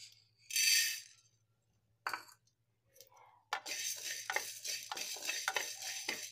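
Coriander seeds poured into a dry kadai, a brief rattling rush about half a second in, then from about three and a half seconds in a wooden spatula stirring the seeds around the dry pan, a steady scratchy rattle of many small ticks.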